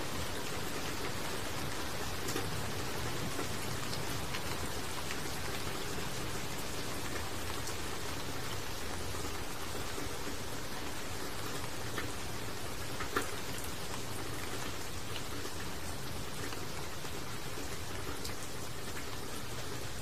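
Steady rain falling, with sharper single drops striking now and then, one louder than the rest a little past halfway.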